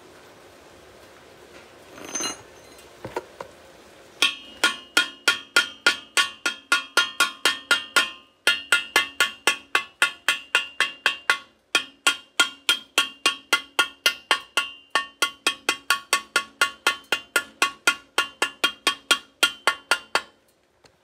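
A chipping hammer tapping slag off a fresh stick-weld bead on thin galvanized steel. After a couple of lighter knocks, it settles into a steady run of sharp metallic strikes, about three or four a second, each leaving the thin steel ringing. The tapping breaks off briefly twice.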